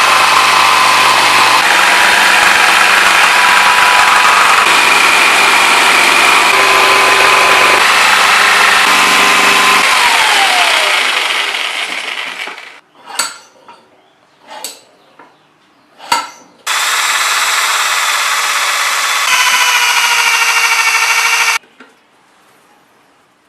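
Small electric motor of a homemade seed-shelling machine running with a loud whir, then switched off about ten seconds in and winding down with a falling pitch. A few sharp clicks follow, then the motor runs again for about five seconds and cuts off suddenly.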